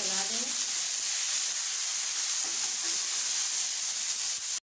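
Chopped onion, tomato and green chillies sizzling steadily in hot oil in a non-stick frying pan. The sizzle cuts off abruptly near the end.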